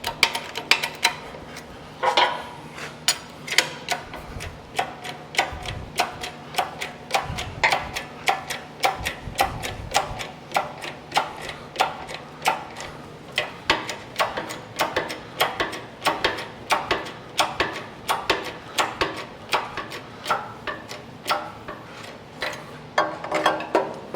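Steady hammer blows on steel, about two a second, each with a short metallic ring, driving a cold part into a heated one to make a shrink fit on a new hydraulic cylinder gland nut.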